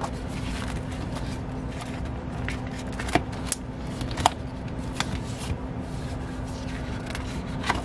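Stiff pages of a ring binder being turned and handled by hand, rustling, with a few sharp clicks and taps, the loudest a little past the middle.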